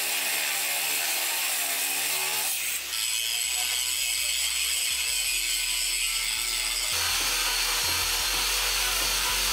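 Kyuho LG100 4-inch angle grinder running against steel: its disc cutting through threaded steel bar, then grinding and polishing steel plate. The grinding noise is steady, with abrupt changes about three and seven seconds in.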